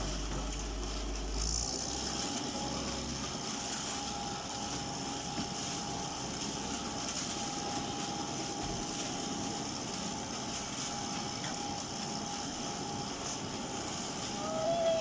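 Small concrete mixer truck running steadily. From about two seconds in, a thin steady whine sits over the engine noise.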